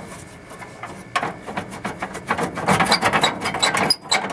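Salt-corroded hinges and lid of a truck-bed toolbox being worked by hand, giving a run of rapid, irregular metallic clicks and rattles from about a second in; the hinges are ruined by salt-water rust.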